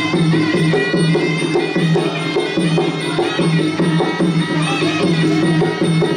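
Traditional Khmer boxing ring music (phleng pradal): a reedy sralai oboe playing a wavering melody over hand drums keeping a steady beat.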